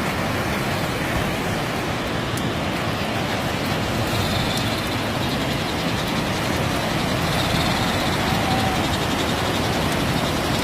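Floodwater rushing over a bridge: a steady, loud, even rush.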